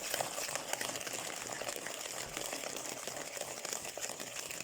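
Soft, steady crinkling and rustling with many small ticks, like packaging being handled.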